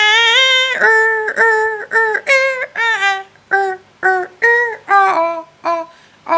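A high-pitched voice singing a run of short, separate notes, about two a second.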